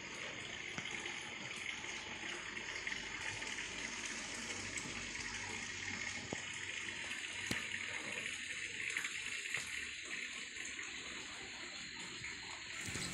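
Steady, faint hiss of background noise with a few soft clicks.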